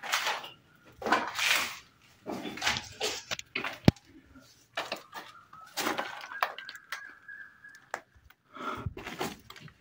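Irregular footsteps and rustling on a gritty, debris-strewn floor as someone walks with a handheld camera, with one sharp click about four seconds in.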